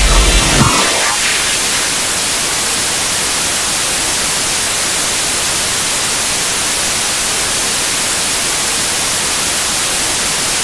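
Loud, steady static hiss like white noise, strongest in the upper range. The tail of bass-heavy electronic music cuts out under it in the first second.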